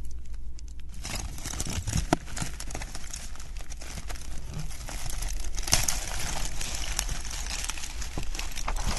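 Clear plastic shrink wrap crinkling and crackling as fingers peel and tear it off a flat wooden puzzle package. The crinkling starts about a second in and goes on steadily, full of small crackles.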